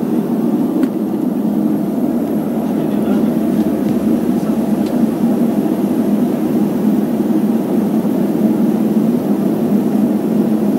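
Walter M601E turboprop engines and five-blade propellers of a Let L-410 twin turboprop running steadily at low power while the aircraft taxis, heard from inside the cabin as a loud, even drone.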